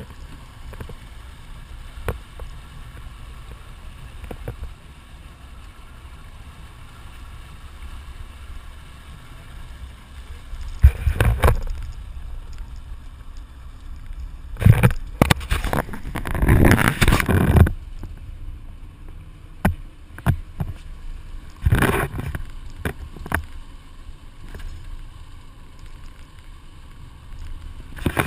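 Outboard-powered catamaran fishing boat under way at sea: a steady low engine drone with water rushing along the hull, broken by several loud rushes of noise, the longest lasting about three seconds midway.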